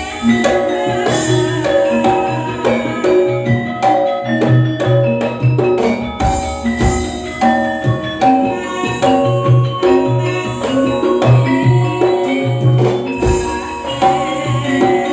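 Campursari music played live: an instrumental passage of struck mallet-percussion notes and drums over a repeated low bass pulse.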